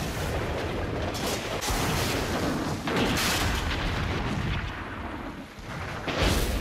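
Battle din of cannon fire: muzzle-loading cannons booming over a continuous clamour of gunfire, with louder blasts about a second in, around three seconds in, and again near the end.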